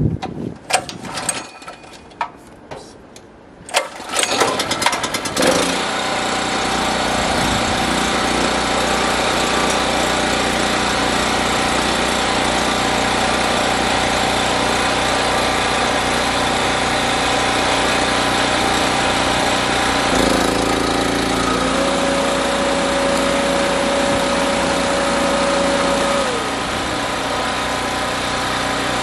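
Predator 3500-watt portable generator (model 4375) being started: a few clicks and clatters, then its single-cylinder engine catches about four seconds in and settles into a steady run. Past the middle a steady whine sounds over the engine for about five seconds, then falls away.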